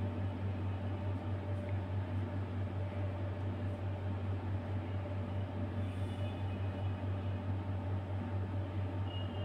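A steady low hum with an even hiss, unchanging in level throughout.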